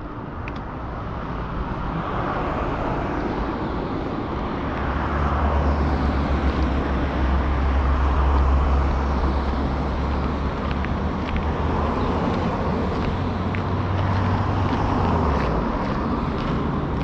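Road traffic: a motor vehicle's engine running close by as a steady low hum over road noise, swelling over the first several seconds, with its pitch dropping a little about fifteen seconds in.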